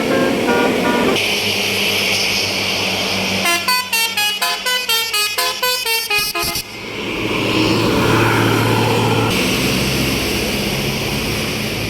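Basuri telolet horn on an Indonesian tour bus playing quick multi-note melodies: a short phrase at the start, then a longer run of rapidly changing notes from about three and a half to six and a half seconds in. Between and after the phrases comes the noise of a bus and its engine passing, loudest near the middle of the second half.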